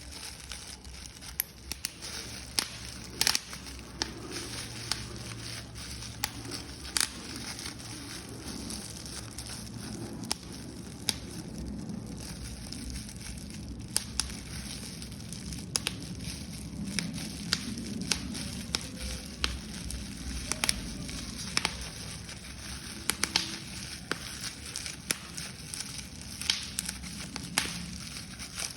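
Paper being crumpled and crushed: irregular sharp crinkles and crackles over a steady rustle, with a few louder snaps.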